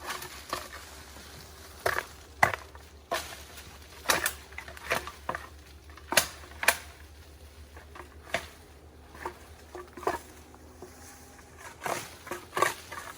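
Irregular crunches and knocks, a dozen or so spaced unevenly, over a faint low steady hum.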